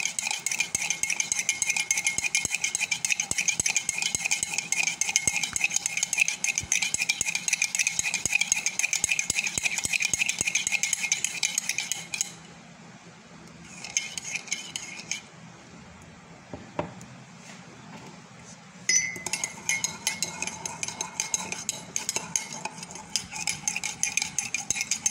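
Metal spoon rapidly beating instant coffee, sugar and a little water in a ceramic mug: fast, continuous clinking and scraping against the mug, whipping the mixture toward a soft, golden paste. About halfway through the beating stops for several seconds, apart from one short spell, then picks up again.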